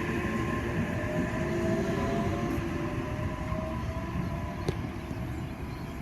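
OSCAR electric multiple unit pulling away from the platform: its traction motors whine, rising steadily in pitch as the train accelerates and slowly fading, over a low rumble of wheels on rail. A single sharp click sounds near the end.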